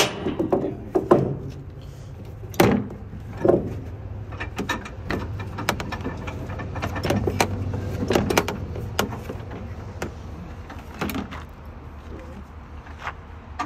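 Irregular clicks and knocks of a hard plastic part and metal fittings being handled and fitted at a compact tractor's mower deck, the loudest few in the first four seconds, over a low steady hum.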